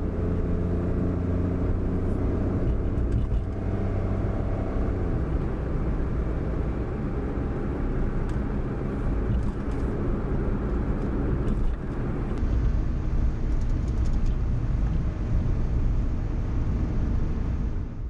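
A car driving, heard from inside the cabin: a steady low engine and road rumble, with a steady engine drone audible in the first few seconds.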